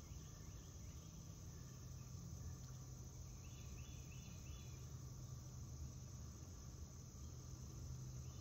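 Insects chirping steadily, with a short run of about four quick chirps roughly four seconds in, over a low steady hum.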